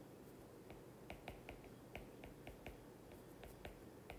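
Stylus tip tapping on a tablet's glass screen while handwriting: faint, uneven clicks, several a second.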